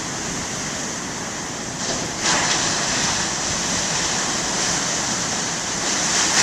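Big ocean waves breaking in heavy surf: a steady rush of water with a louder surge about two seconds in.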